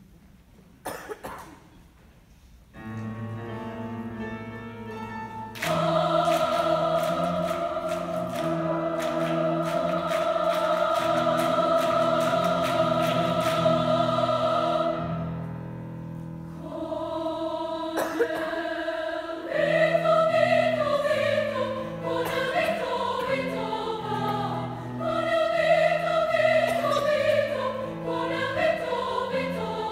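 Women's choir singing with grand piano accompaniment. After a quiet opening the piano comes in, the choir enters a few seconds later on a long held chord, breaks off briefly around the middle, then sings a moving melodic line.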